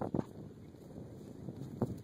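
Wind buffeting the microphone, with a couple of dull thuds at the start and another near the end.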